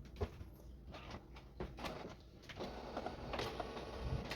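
Canon TR8520 inkjet printer shutting down after its power button is held: faint mechanical whirring with scattered light clicks, loudest in the second half.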